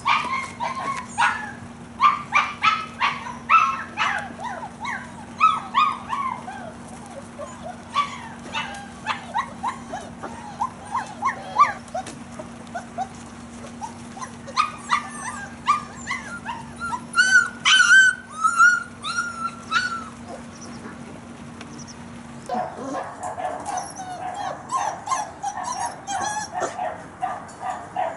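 Month-old German Shepherd puppies yipping and whimpering in short, high calls, many in quick succession. Over the last few seconds the calls turn into a denser, lower run of yelps and squeals.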